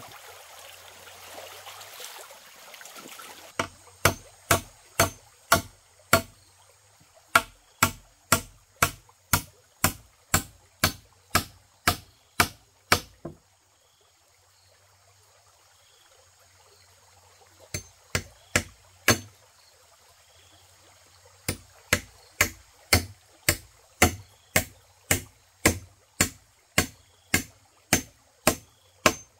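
Stream water running for the first few seconds, then a hand tool chopping repeatedly into the ground, about two sharp blows a second. The blows stop around the middle, come a few times again, then resume steadily.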